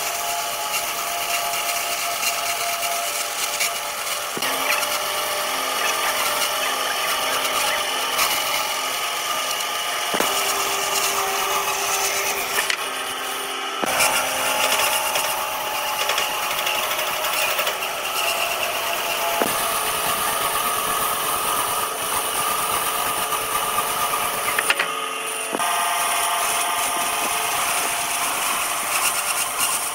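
Woodworking power tools running on wood, in several short takes that change abruptly every few seconds.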